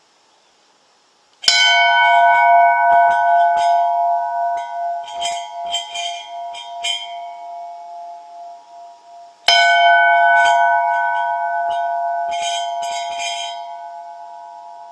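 Large sand-cast solid brass bell rung by its clapper: two strong strikes about eight seconds apart, each ringing out and slowly dying away, with several lighter clapper knocks in between.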